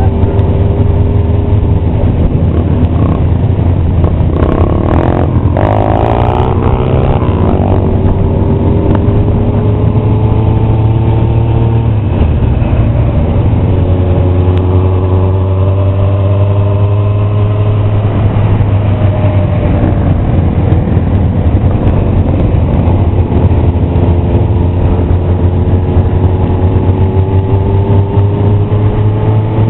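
Many motorcycles riding together in a parade: a steady low engine drone, with engine notes gliding slowly up and down as the bikes speed up and shift. About five seconds in, one engine revs up sharply for a moment.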